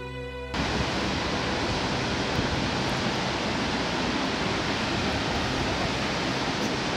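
Steady rushing of water at a dam, an even, unbroken noise that cuts in about half a second in as the last notes of background music stop.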